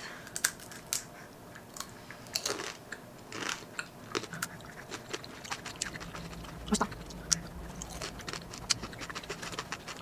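Tanghulu being bitten and chewed: the hard sugar-candy shell on candied mandarin segments cracks and crunches between the teeth in a run of irregular crisp cracks.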